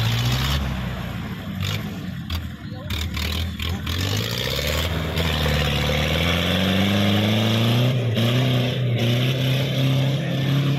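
4x4 jeep's diesel engine revving hard under load in deep mud. Its pitch climbs steadily from about four seconds in, then holds high.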